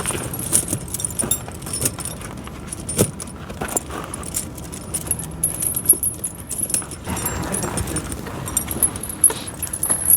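Steel tractor tire chain links jangling and clinking as the chain is handled, in irregular bursts of sharp metallic clicks.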